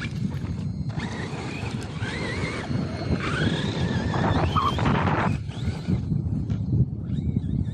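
RC truck's motor whining, its pitch rising and falling with the throttle, over heavy wind buffeting the microphone.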